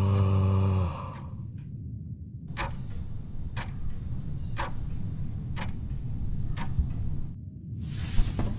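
A drawn-out voiced 'huh', falling in pitch, ends about a second in. Then come short regular ticks, about one a second, with a brief hiss near the end.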